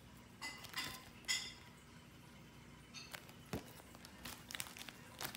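Clear plastic sleeves of sticker sheets rustling as they are handled, with a few light clicks and taps.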